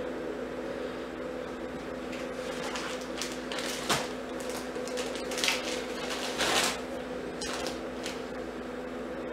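Small clear plastic bags crinkling and rustling as they are handled and opened, in a few short bursts, with a sharp click about four seconds in, over a steady low hum.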